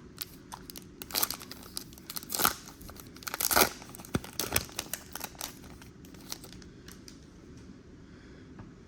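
Trading-card hobby pack being torn open, its wrapper crinkling and ripping in irregular bursts. The loudest rips come about two and a half and three and a half seconds in, and it tails off into lighter crinkling in the last few seconds.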